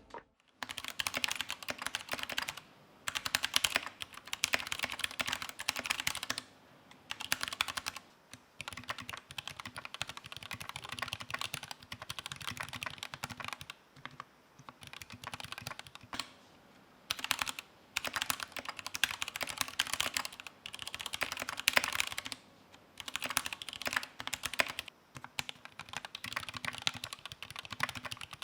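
Typing on a modded GK64XS 60% mechanical keyboard with Krytox-lubed Gateron Yellow linear switches, switch films, foam dampening and PBT doubleshot keycaps. It is a fast, continuous run of keystrokes, broken by several brief pauses.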